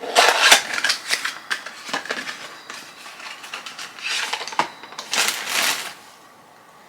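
Packaging rustling and crinkling as a scented candle is handled and unwrapped, in several bursts of crackly noise, loudest in the first second.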